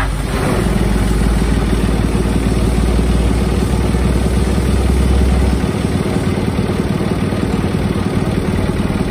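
Kubota M1-55 tractor's three-cylinder diesel engine catching just after the start and running. A deep low drone underneath fades out about five and a half seconds in, leaving a steady idle.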